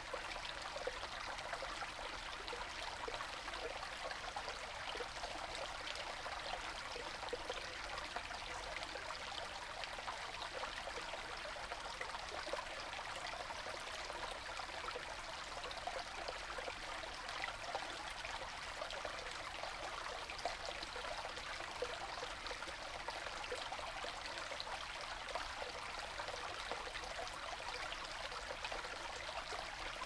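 Shallow stream running over stones and pebbles: a steady babble made of many small splashes.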